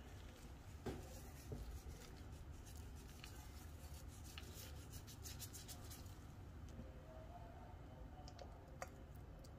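Faint, fine scratchy ticking of seasoning sprinkled from gloved fingertips onto fish pieces, after a couple of soft knocks about a second in.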